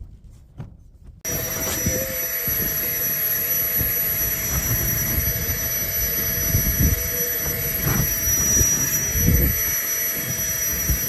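Strong wind rushing over the phone's microphone, a steady roar with irregular low buffeting gusts, starting abruptly about a second in.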